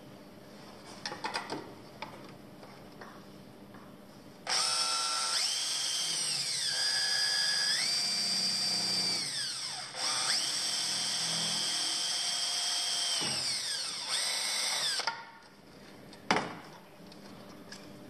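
Cordless drill running in two runs of about five seconds each, its whine rising and falling in pitch.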